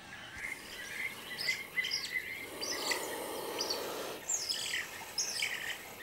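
A group of mongooses giving many short, high chirping calls that overlap one another: mobbing calls directed at a puff adder.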